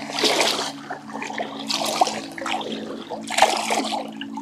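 River water splashing in three short bursts at the waterline as a small male Atlantic salmon is released by hand from a rubber-mesh landing net.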